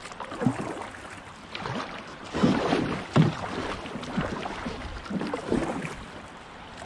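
River water rushing and slapping against a kayak hull in a shallow riffle, with kayak paddle strokes splashing; the splashes are loudest around the middle.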